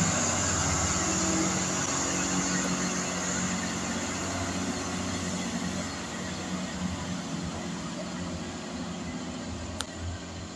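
Great Western Railway Hitachi Intercity Express Train running on its underfloor diesel engines as it comes into a platform: a low engine hum under a noisy rush that fades gradually as the train slows. A short click near the end.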